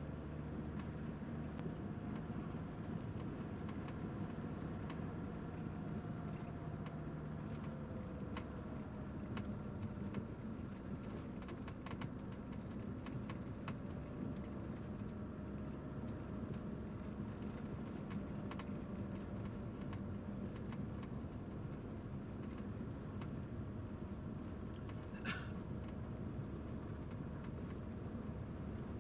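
Vehicle on the move, with steady engine hum and road noise and many light ticks and rattles. The engine pitch dips slightly about eight seconds in, and there is a brief high squeak about 25 seconds in.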